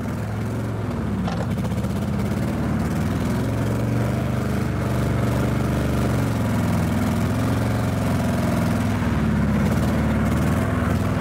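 A classic Lada's four-cylinder engine runs unevenly after its burnt pistons were patched with glue and cold weld. By ear it is firing on only two or three cylinders, with heavy blow-by.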